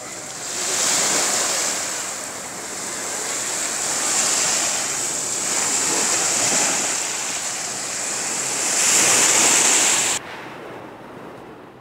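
Small sea waves washing up onto a sandy beach, the surf swelling and easing in surges every few seconds. The wash falls away suddenly near the end.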